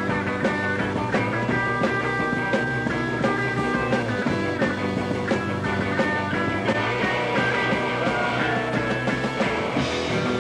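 Live rock band playing an instrumental passage on electric guitars, bass and drum kit, with a lead electric guitar line of held notes stepping up and down in pitch over a steady beat.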